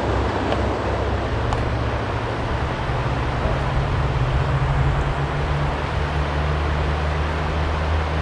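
Steady rushing of flowing river water, an even noise with a deep low rumble under it.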